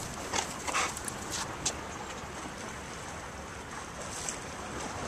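Steady wind across the microphone over water lapping on the bay shore, with a few brief rustles in the first two seconds.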